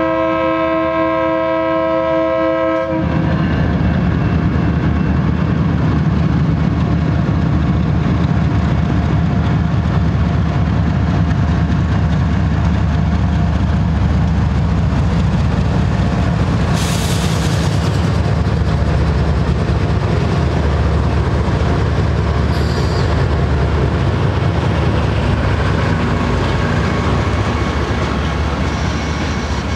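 A BNSF GE ES44DC diesel locomotive's air horn sounding a steady chord for the grade crossing, cutting off about three seconds in. Then the two locomotives run past with a loud low diesel rumble, followed by freight cars rolling by with a clickety-clack of wheels on rail joints, broken by a short hiss partway through.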